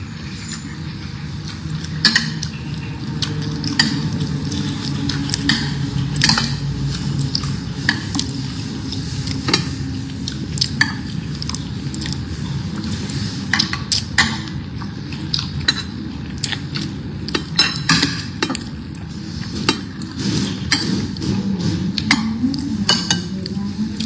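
Metal spoon clinking and scraping on a ceramic plate as rice is scooped up, a scattered series of sharp clicks over a steady low hum.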